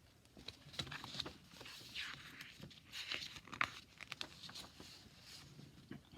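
Faint rustling of a picture book's paper pages being handled and turned, with small clicks and a couple of soft swishes.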